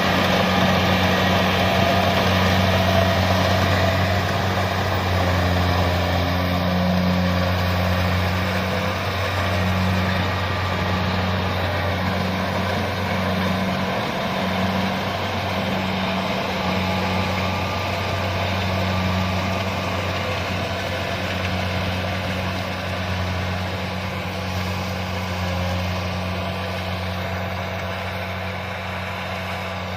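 Kubota DC-70 combine harvester running steadily, a continuous low diesel engine hum with machinery noise over it, growing a little quieter toward the end.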